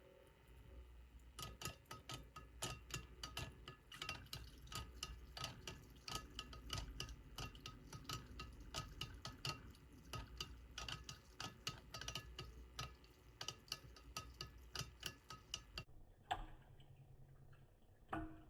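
Rapid, irregular clicking and ticking, several clicks a second, each with a faint ring. It stops abruptly about 16 seconds in, followed by two single louder knocks.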